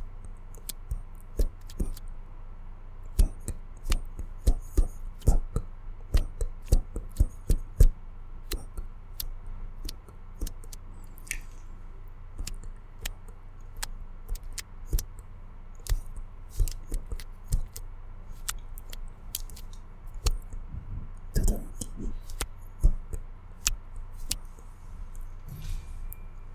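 Long artificial fingernails clicking and tapping against each other close to the microphone, in quick irregular clicks.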